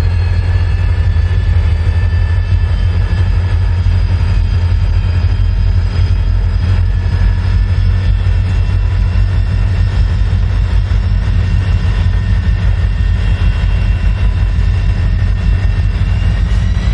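Norfolk Southern six-axle diesel locomotives passing slowly, engines running with a steady heavy low rumble and a high whine that drifts slowly in pitch.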